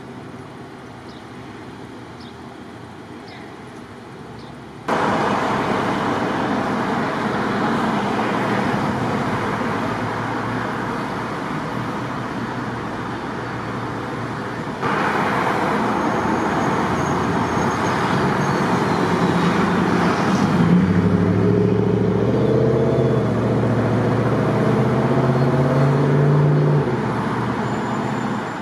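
Loud, steady vehicle noise, a rushing hiss that jumps abruptly louder twice, about five and fifteen seconds in. In the last several seconds a low engine hum with several steady tones comes up over it.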